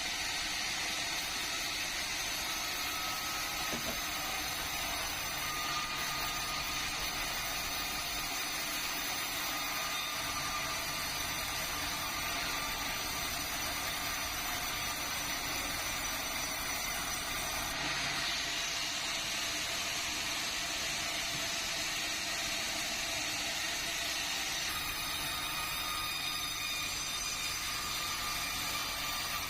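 Sawmill saw machinery running steadily with a constant whine, its tone shifting slightly a couple of times.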